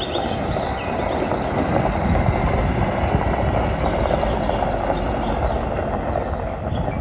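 Diesel engine of a three-axle box truck running steadily as the truck drives across a gravel yard.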